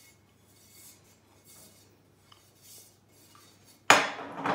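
Faint rubbing as sunflower oil is smeared by hand around the inside of a thick-bottomed frying pan, then, about four seconds in, a sudden loud clatter as the heavy pan is set down on the countertop.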